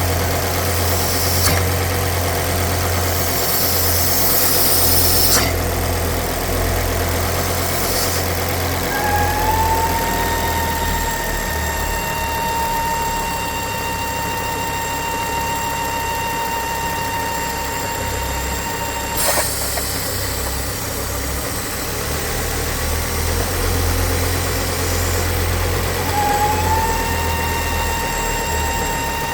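Ford S-Max 2.5T's turbocharged five-cylinder engine idling, with a high steady whine that rises in about a third of the way through, holds, stops abruptly with a click, and comes back near the end. The whine is the sign of a failed oil filter housing diaphragm (crankcase breather membrane) pulling strong negative pressure.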